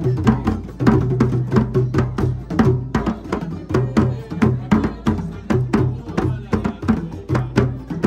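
Live West African hand drumming: a group of djembes playing a fast, dense rhythm of sharp strikes, with a low bass note pulsing underneath.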